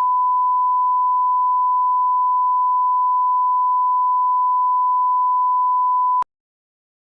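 Steady electronic test tone at about 1 kHz, one pure pitch held for about six and a half seconds, then cut off abruptly with a short click.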